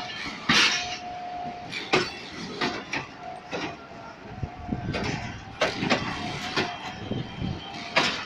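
Pakistan Railways passenger coaches of an arriving express rolling past, their wheels clacking and knocking irregularly over the rail joints over a steady rumble. A short steady squeal sounds about half a second in.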